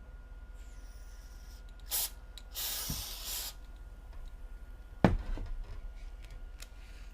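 Aerosol can of spray adhesive: a short spurt, then about a second of hissing spray. A sharp knock follows about five seconds in.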